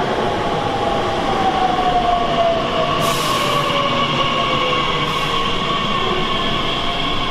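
Electric multiple-unit passenger train running past at low speed, with wheel and track rolling noise. Its traction-motor whine falls steadily in pitch as the train slows. A brief hiss comes about three seconds in.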